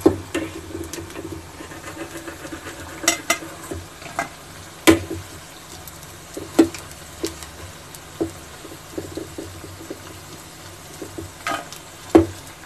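Cauliflower bajji deep-frying in hot oil in a steel kadai, a steady sizzle, while a perforated steel skimmer stirs them. The skimmer gives several sharp metal clinks against the pan at uneven intervals, the loudest about five seconds in and near the end.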